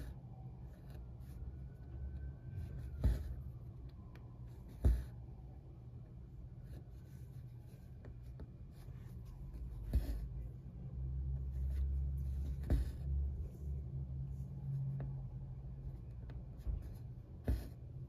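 Embroidery floss being drawn through taut 25-count Lugana evenweave fabric as a needle is stitched in and out, a soft scratchy rustle with a sharp tap every few seconds as the needle pierces the stretched cloth.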